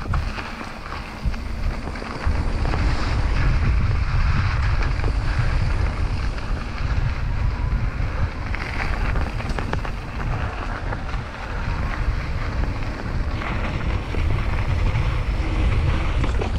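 Wind buffeting the microphone of a camera on a mountain bike riding down dirt singletrack, with tyre noise and occasional clicks and rattles from the bike over the trail. The rush gets louder about two seconds in as the bike picks up speed.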